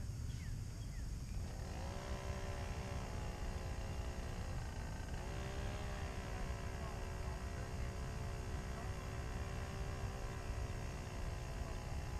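Motorboat engine running across the water: its pitch rises about a second and a half in, eases, rises again about five seconds in, then holds steady at cruising speed. A low rumble sits underneath throughout.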